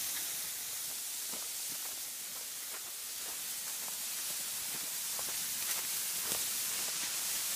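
A bundle of cut leafy bamboo canes dragged over dry, leaf-littered ground, giving a steady scraping rustle with faint crackles of leaves and twigs.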